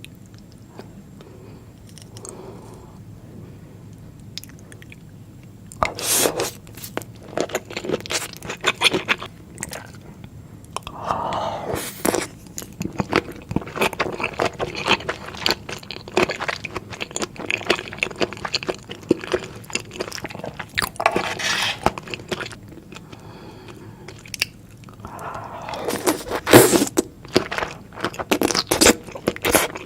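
Close-miked eating sounds of soy-marinated raw shrimp: irregular crunching, crackling and wet chewing as the shrimp are bitten and chewed, starting about six seconds in.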